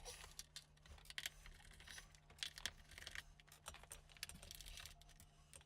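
Faint, irregular small clicks and taps of a screwdriver working screws out of a laptop's plastic base panel.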